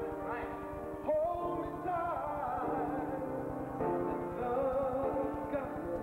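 A man singing a slow ballad with piano accompaniment: long, wavering sung notes that slide from one pitch to the next over sustained piano chords.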